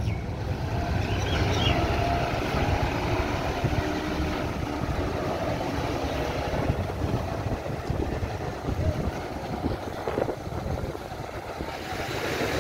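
Large coach bus engine running low and steady as the bus drives slowly up the ramp onto a ferry's vehicle deck.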